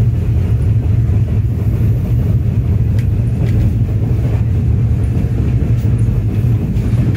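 Steady low rumble of a moving passenger train heard from inside the carriage, with a couple of faint clicks about three seconds in.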